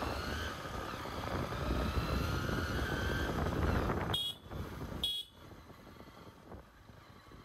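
Motorcycle engine accelerating, its pitch rising steadily. About four seconds in come two short sharp noises about a second apart, after which the engine drops to a much quieter rush of road and wind noise.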